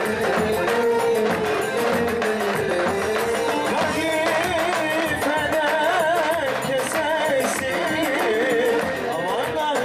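Turkish folk-style dance music: an ornamented, wavering sung melody over a steady percussion beat.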